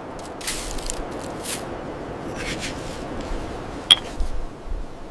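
Hands handling dried leaves and herbs: soft rustles and squishes of the poultice being pressed on, over a steady background hiss, with one sharp click about four seconds in.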